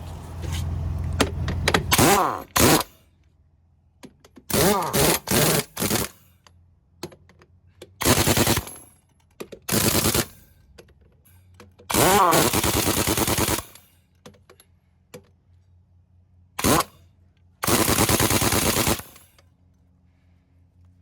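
Pneumatic impact wrench run in about seven short bursts, each up to a second and a half long, with pauses between them, the motor's pitch rising and falling within each burst.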